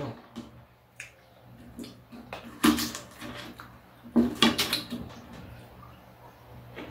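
A knife clinking and scraping on a plate as Korean melon is cut up, with a few sharp clatters about one, two and a half, and four seconds in.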